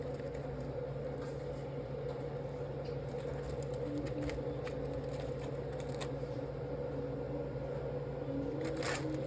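A steady mechanical hum with occasional light clicks and taps, and a short cluster of clicks near the end.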